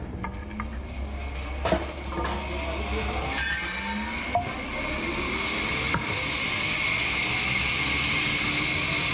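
Sawmill machinery running: a steady low motor hum with a few sharp clanks and rising whirs, then a steady high whine that sets in about six seconds in and grows a little louder.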